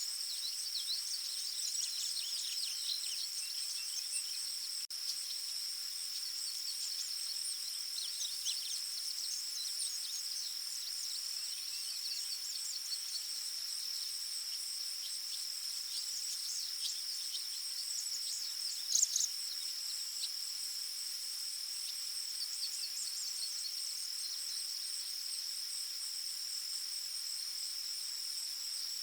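Forest ambience: a steady, high-pitched insect chorus carries on throughout, with scattered short bird chirps over it and one louder bird call about two-thirds of the way in.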